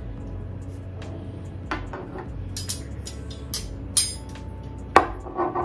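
Thin black metal rods of a flat-pack cookbook holder clinking against each other and tapping on the countertop as they are handled and fitted together: a scatter of light clicks, a sharper ringing metallic clink about four seconds in, and a louder knock about five seconds in.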